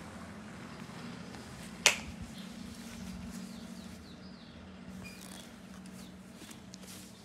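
A single sharp click about two seconds in, over a steady low hum, with a few faint high chirps later on.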